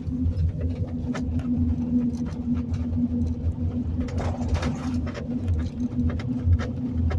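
Steady road and engine hum inside a moving vehicle's cabin, with a few light clicks scattered through it.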